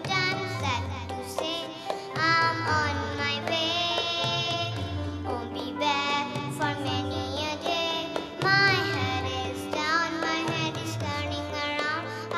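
A young girl singing a song into a microphone, her voice amplified over a steady musical accompaniment.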